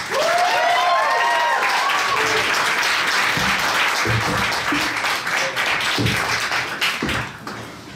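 Audience applauding, with a few whoops and cheers in the first two seconds; the applause dies down about seven seconds in.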